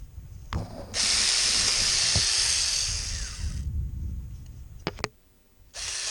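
Hancaner mini cordless electric chainsaw running in two bursts, the first from about a second in to nearly four seconds and the second starting again near the end, with a high hissy whir as it cuts branches. A couple of sharp clicks come between the bursts.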